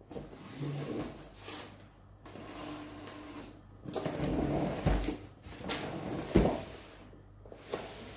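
Long cardboard box being slid and turned on a table by hand, with rubbing and scraping of the cardboard and two knocks against the tabletop, the louder one past the middle.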